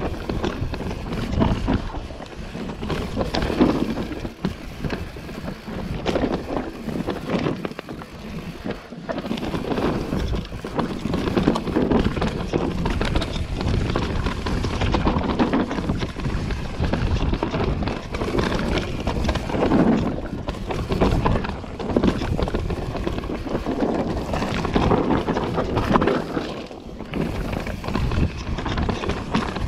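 Mountain bike riding fast down a dirt singletrack, heard from a camera on the rider: wind buffeting the microphone over a steady rumble of tyres on the trail and the rattle of the bike, rising and falling with the terrain.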